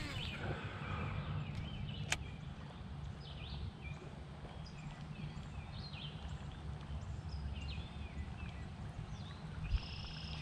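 Birds chirping and singing in short, repeated phrases around the lake, over a low steady rumble. A single sharp click about two seconds in.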